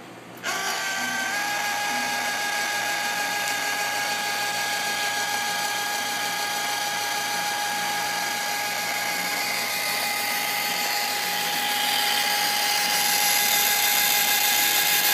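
DC motor fitted in place of a dead AC motor in an antenna elevation rotator, starting about half a second in and running steadily through the rotator's gearing with a steady whine over a hissing mechanical noise. The noise grows louder near the end.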